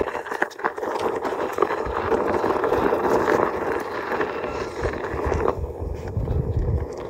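Onewheel rolling along a dirt trail: a steady hum with scattered knocks and scrapes from the tyre on the ground, and a low rumble that swells near the end.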